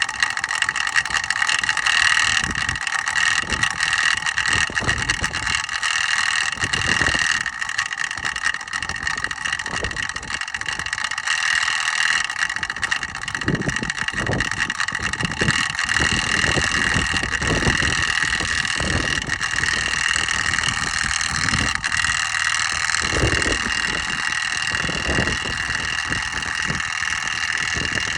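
Water booster pump running with a steady, high-pitched multi-tone whine, the abnormal noise from its motor. Irregular low rumbles come and go underneath.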